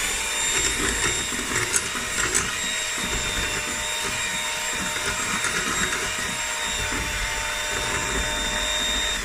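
Electric hand mixer running at a steady speed with a constant motor whine, its beaters whisking eggs and caster sugar in a glass bowl, with a few ticks of the beaters against the glass early on.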